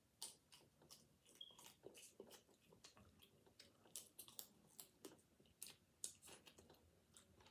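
Faint, close-up chewing and mouth sounds of someone eating snow crab meat: irregular soft clicks and smacks, several a second.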